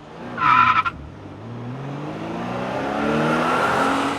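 A car engine accelerating, its pitch and loudness climbing steadily, after a short high-pitched chirp about half a second in.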